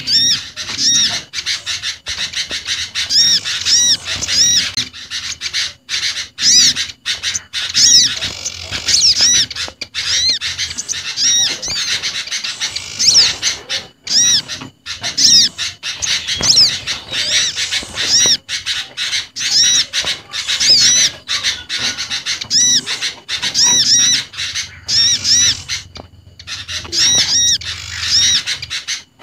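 Bird-lure recording of small garden birds calling together: olive-backed sunbird, common iora, bar-winged prinia and sooty-headed bulbul. Dense, rapid, high chirping and twittering that never lets up.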